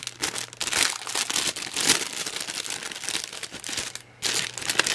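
Clear cellophane bag crinkling as hands open it and pull out pens, in irregular rustles with a brief lull about four seconds in.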